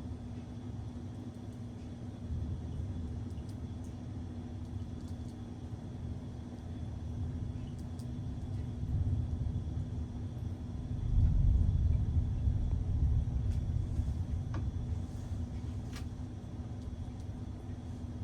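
Thunder rumbling low, building to its loudest about eleven seconds in, then slowly dying away.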